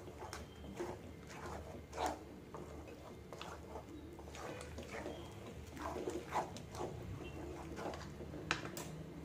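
Wooden spatula stirring and scraping thick urad dal batter around an aluminium kadai, a rough stroke about every half second. The batter is thickening as it cooks.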